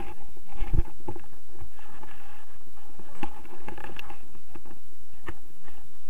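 Wind buffeting a harness-mounted action camera's microphone in a steady rumble, with about half a dozen short knocks and rustles from the paraglider harness and lines.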